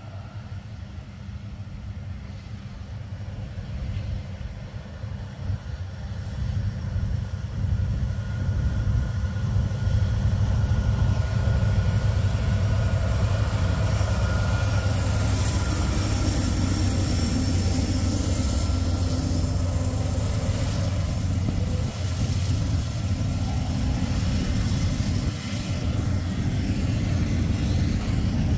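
Diesel locomotives of a Norfolk Southern intermodal freight train approaching and passing at slow speed. The engine drone grows over the first ten seconds, then holds steady, with a thin high whine rising and fading in the middle.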